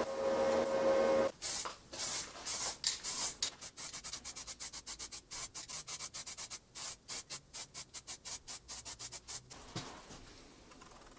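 A steady motor whine stops about a second in. Fast rhythmic rubbing strokes follow, like hand sanding or filing, quickening as they go and stopping a couple of seconds before the end.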